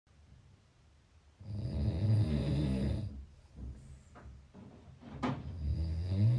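A person snoring with a low rasp: one long snore about a second and a half in, then a second snore starting near the end. Two brief sharp clicks come between the snores.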